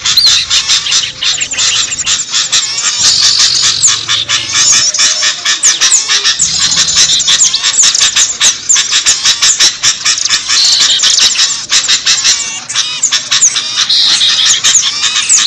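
Dense chorus of many small birds chirping and twittering at once, rapid high calls crowding on each other without a pause: a mixed-species bird-lure (pikat) recording.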